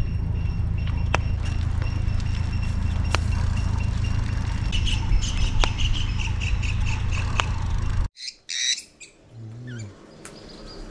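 Birds chirping in quick repeated series over a steady low rumble. After an abrupt cut about eight seconds in, small caged parrots (lovebirds and budgerigars) give a few short squawks.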